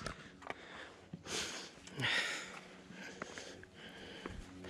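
A climber breathing hard, two loud breaths about one and two seconds in, with small clicks and scuffs between them: the effort of a steep, slippery scramble up rock.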